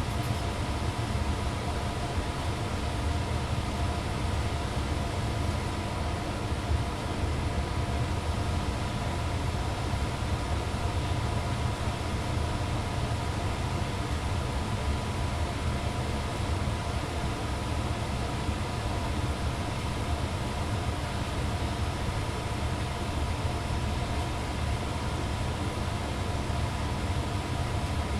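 Blower of a 2002 Ducane furnace running steadily: an even low hum with a few faint steady tones above it.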